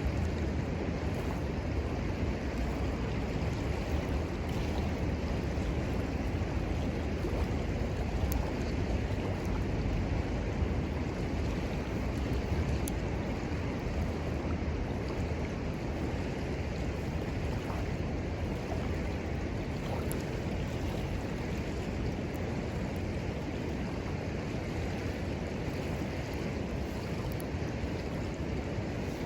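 Steady rush of flowing river water, with a few faint sharp pops scattered through it from the wood fire.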